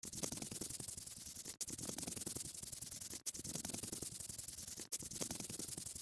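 Coloring sound effect of a brush rubbing as it fills in a square: a faint dry scratchy noise that repeats in stretches of about a second and a half, each broken by a brief drop.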